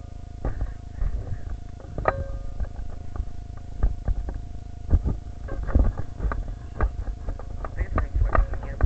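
Handling noise from a Nerf blaster and its mounted camera as they are carried: irregular knocks, bumps and rubbing, with low rumbles.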